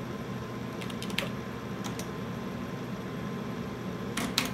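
Computer terminal keyboard keys clicking: a few separate keystrokes in the first two seconds, then a quick burst of keystrokes near the end, over a steady low hum.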